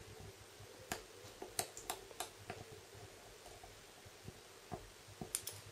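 Faint, scattered small clicks and taps of a precision screwdriver and fingertips on a Samsung Galaxy S4's opened frame and logic board as a tiny screw is driven in.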